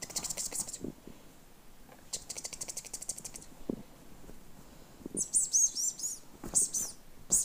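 Small birds chirping: two rapid clicking trills in the first few seconds, then a run of short high chirps near the end, with a couple of soft low thuds in between.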